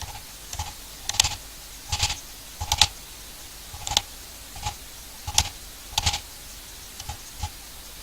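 Wood chisel being struck to cut waste out of a recess in a pine block. About a dozen sharp, irregularly spaced knocks, each with a short ring.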